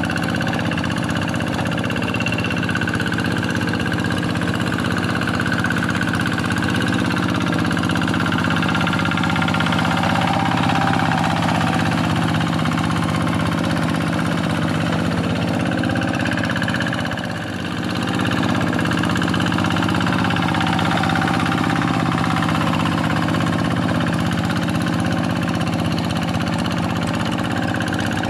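Quick G1000 hand tractor's Kubota single-cylinder diesel engine running steadily while ploughing a wet rice paddy. The engine note dips briefly about two-thirds of the way through, then picks up again.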